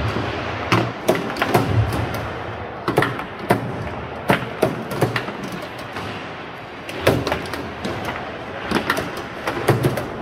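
Foosball table in fast play: irregular sharp clacks and knocks of the ball striking the plastic players and the rods being slammed and spun, with a brief lull just after the middle.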